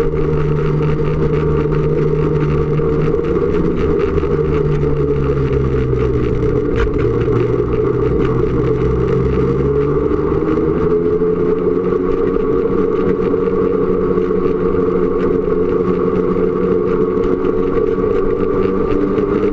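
Snowmobile engine running along the trail. The engine note drops for a few seconds, then climbs steadily again from about ten seconds in as the sled speeds up.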